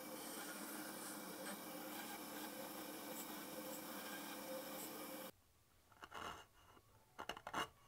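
Band saw running steadily while cutting dovetail tails in a walnut board. About five seconds in it cuts off suddenly, followed by a few short scraping strokes of a chisel paring end grain.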